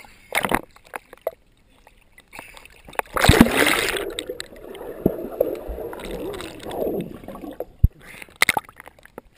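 Lake water splashing and slapping against a waterproof action camera held at the surface. About three seconds in there is a loud splash as the camera goes under, then several seconds of muffled underwater sound, and more splashes as it comes back up near the end.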